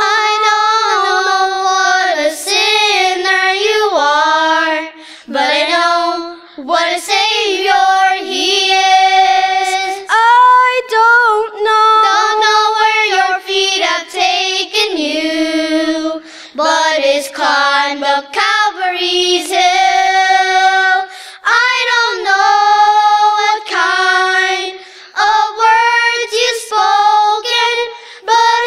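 A girl singing a gospel song solo in a high child's voice, holding notes and sliding between them, with short breaks between phrases.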